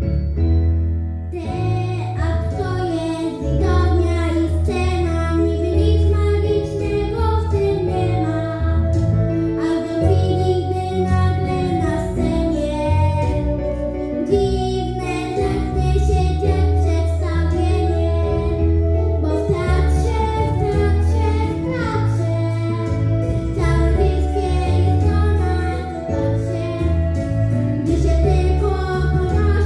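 Pop-style backing track for a children's song: a steady pulsing bass under a bright melody line.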